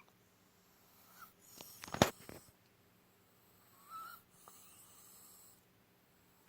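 Hen wheezing and gasping for breath, a sign of respiratory illness that has also taken her voice. Two drawn-out raspy, hissing breaths, each opening with a small squeak. A sharp, louder sound about two seconds in.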